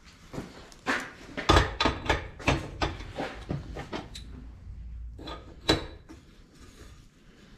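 Steel tools clanking and knocking against a heavy bearing housing on a steel workbench: a pry bar and a screw-type bearing puller being worked to free a bearing race. The knocks come irregularly, with two louder clanks, one about a second and a half in and one near six seconds.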